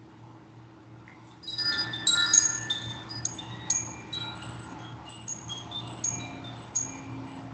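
A set of metal chimes struck into a cluster of bright, ringing tones about a second and a half in, then sounding more sparsely and ringing out. A low steady hum runs underneath.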